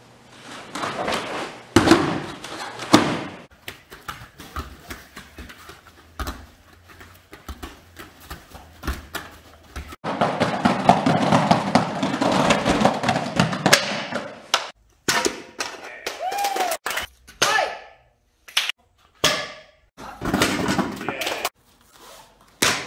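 Karate training sounds: thuds and slaps of strikes and falls on pads and mats, mixed with bursts of children's voices and shouts. Near the end, a sharp crack as a child strikes a practice board held by the instructor.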